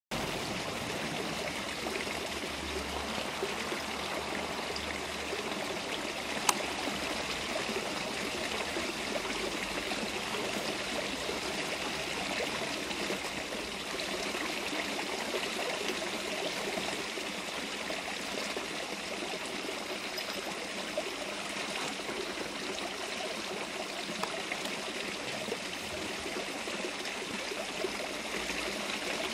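Steady rushing noise like running water, unchanging throughout, with one sharp click about six and a half seconds in.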